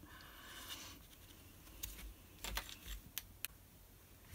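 Faint handling sounds of paper craft work: a light rustle in the first second, then a few soft, irregular clicks and taps of card stock and fingers on the craft mat.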